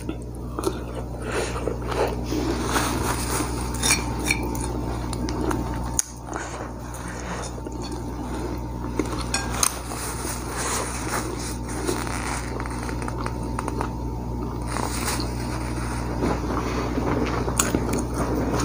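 Close-miked eating: chewing fried duck picked off the bone by hand, with scattered small clicks and clinks against a plate. A steady low hum runs underneath.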